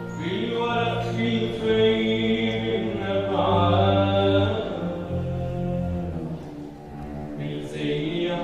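A male singer sings an Arabic song in long, pitch-bending phrases, with an instrumental ensemble accompanying him.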